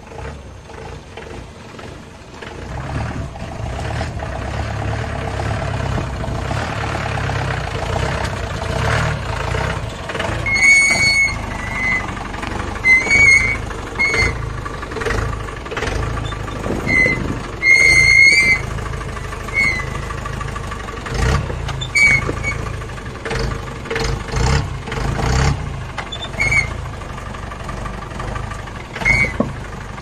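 4x4 jeep engine running as the jeep drives along, picking up about two to three seconds in. Short high squeaks come at irregular intervals about a dozen times over it.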